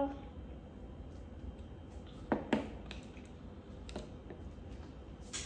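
Light handling sounds of small plastic things at a tabletop: a few soft clicks and taps, the loudest two close together a little over two seconds in, as a dye bottle is put down and a plastic spoon goes into a bowl of slime.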